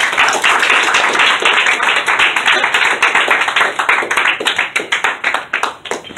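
Congregation applauding: many hands clapping at once, dying down near the end.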